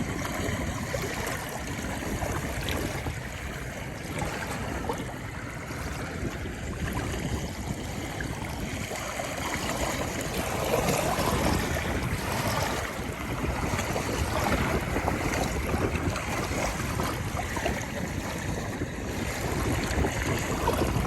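Mekong River waves washing steadily, with wind rumbling on the microphone; the water gets a little louder about halfway through.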